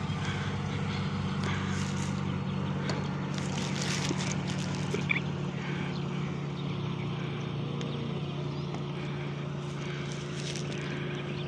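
A vehicle engine idling steadily, a constant low hum, with a few short scratchy noises about four seconds in and again near the end.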